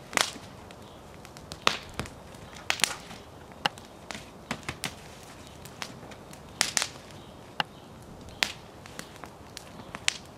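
Wood fire burning in an open fire bowl, crackling with irregular sharp pops, some in quick pairs, over a low steady hiss.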